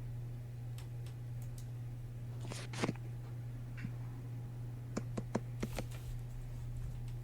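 A few scattered computer keyboard key presses, a short cluster of clicks about five seconds in, over a steady low electrical hum.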